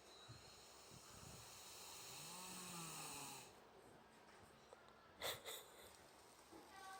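A Thoroughbred horse snoring as it sleeps standing up: one long, faint snore that swells for about three and a half seconds and then stops abruptly. About five seconds in come two sharp knocks, the loudest thing heard.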